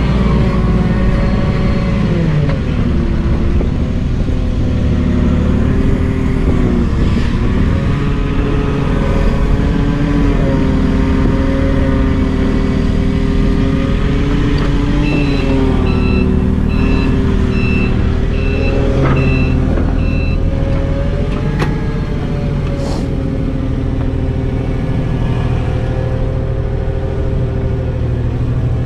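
Heavy truck engine running, its pitch dipping and rising a few times as the revs change. Midway, a reversing alarm sounds a run of about six high beeps, a little under a second apart.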